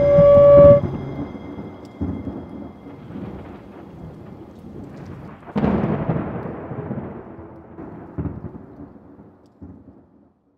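Thunder rolling. A sudden crack about two seconds in and a louder one about halfway through each fade into a long low rumble, and two smaller rumbles follow near the end. A held musical tone rings out and stops in the first second.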